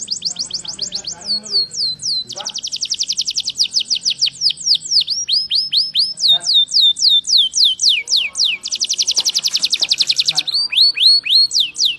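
Domestic canary singing a continuous song made of phrases of rapidly repeated, quickly falling notes, about eight to ten a second. Twice it breaks into a very fast buzzing trill, once about two and a half seconds in and again near the ninth second.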